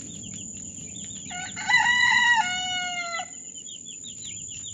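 A rooster crows once, about a second and a half in: a loud two-part crow of about two seconds, the second part lower and falling. Under it, week-old chicks peep steadily.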